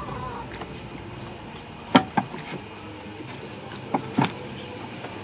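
Two pairs of sharp metal knocks, about two seconds apart, as an outboard motor's lower-unit gearcase is pushed up against the midsection while its driveshaft splines are being lined up. A short high chirp repeats about once a second in the background.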